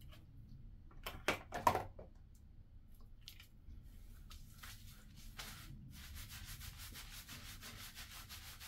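Fingertips scrubbing clarifying shampoo with exfoliating beads into wet, coily hair and scalp: a faint, fast, scratchy rubbing. About a second in come a few short wet squishes from the shampoo being squeezed from its tube into the palm.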